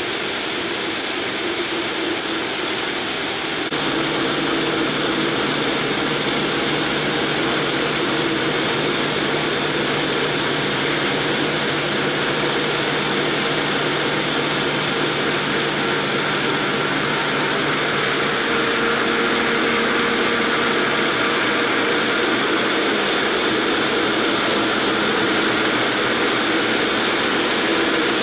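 Multi-blade granite block cutter running, its large segmented circular saw blades cutting through a granite block: a steady grinding hiss over a steady machine hum. A lower hum joins about four seconds in.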